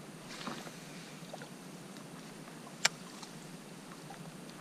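Quiet open-air background hiss with a brief rustle about half a second in and a single sharp click a little under three seconds in.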